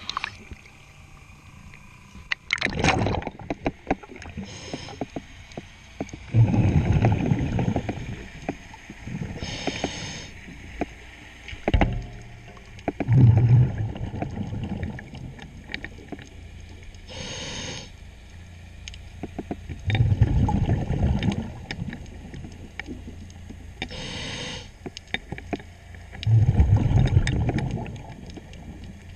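A diver breathing underwater through a regulator: a short hiss on each inhale, then a longer burst of bubbles on each exhale, about four breaths spaced six to seven seconds apart. Scattered light knocks and clicks run between them.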